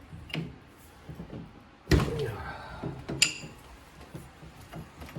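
Hand wrench working a steel spindle bolt on a VW front end: light metal taps, a sharp clank about two seconds in, and a ringing metallic clink a second later.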